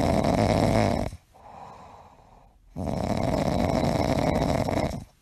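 Sleeping dog snoring: two long, loud snores of about two seconds each, with a quieter breath between them.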